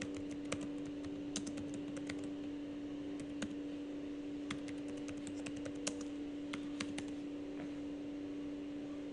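Computer keyboard being typed on: scattered keystroke clicks in short runs, stopping about seven seconds in, over a steady low hum.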